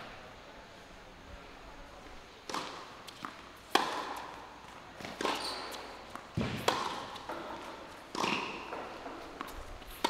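Tennis rally on a hard court: sharp racket strikes and ball bounces trading back and forth every second or so. The hardest hit comes a little under four seconds in.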